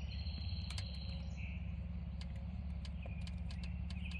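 Steady low hum with faint, steady high-pitched chirping and a few light clicks.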